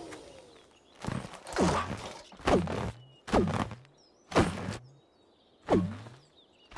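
Repeated bouncing on an inflatable bouncy castle, about once a second, six times: each bounce a soft thud with a quickly falling, boing-like tone, the gaps growing slightly longer toward the end.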